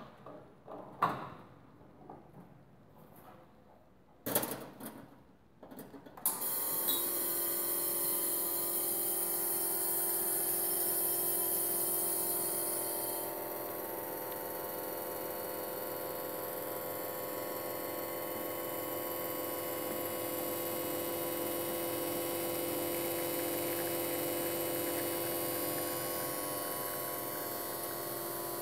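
Commercial three-group espresso machine brewing: a few clunks as a portafilter is locked into a group head, then about six seconds in the pump starts with a steady hum and hiss as espresso runs into shot glasses. The hiss drops back about halfway through while the pump hum continues.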